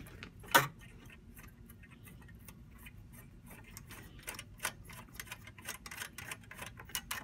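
Light, irregular plastic-and-metal clicks and ticks from the latch and bay of a hot-swap fan module on a Cisco Nexus 9336PQ switch as it is worked loose, with one sharper click about half a second in. The clicks come more often toward the end.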